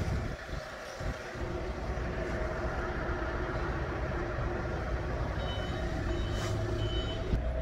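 A heavy vehicle's engine running steadily, with short high-pitched beeps repeating from about five seconds in.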